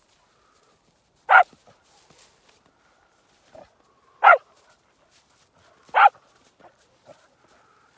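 A Karelian-Finnish laika barking three single sharp barks, a second and a half to three seconds apart.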